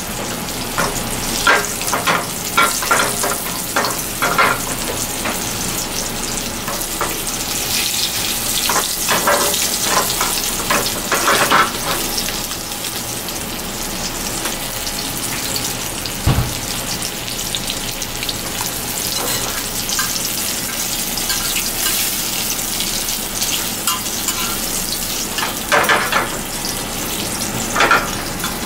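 Oil sizzling steadily around rolled fish fillets pan-frying in a carbon-steel pan, with crackles and spits at intervals. A single dull thump about halfway through.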